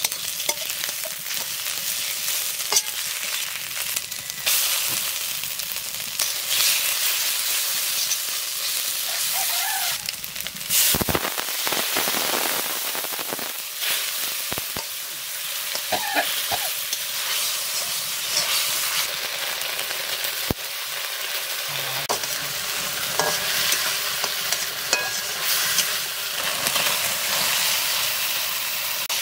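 Food sizzling in hot oil in a cooking pan while it is stirred, with a steady frying hiss and scattered scrapes and clinks of the spoon against the pan.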